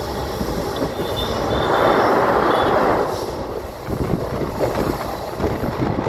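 Passenger express running at speed behind a WDP-4D diesel locomotive: a steady rumble of wheels on rail with wind rushing past the open coach door, swelling louder about two seconds in. A faint high squeal of wheels comes around a second in, and a run of irregular knocks as the wheels cross track joints follows in the second half.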